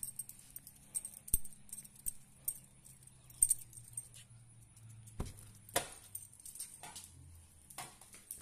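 Small metal pieces jingling and jangling steadily, broken by scattered clicks and a few sharp knocks, the loudest about a second and a half in and again about three and a half seconds in, over a low steady hum.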